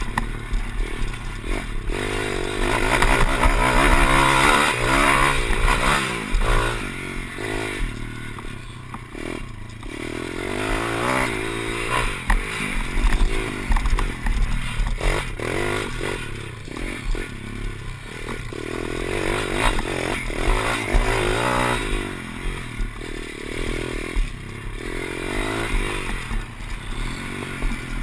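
Pit bike engine revving hard, its pitch rising and falling over and over with the throttle as the bike is ridden over a dirt track, with a low rumble of wind on the microphone underneath.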